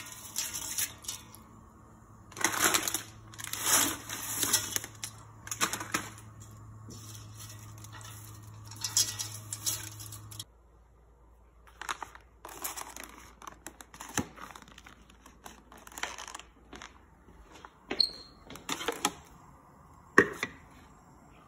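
Dry spaghetti strands rustling and clattering against a stainless steel pot as they are fed in by hand, in a series of bursts over a low steady hum. The hum stops about halfway, and after that there are only scattered clicks and knocks of items being handled on a kitchen counter.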